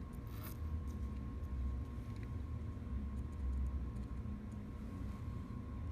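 Faint small ticks and clicks of a precision screwdriver driving tiny screws into a smartphone's frame, over a steady low hum.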